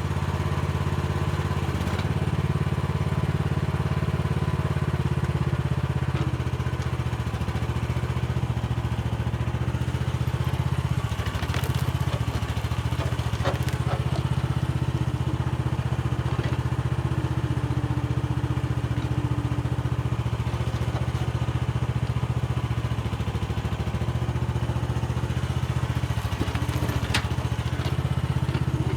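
Mini excavator's engine running steadily under work, its low note shifting a little now and then. A few sharp clicks and knocks come from the digging.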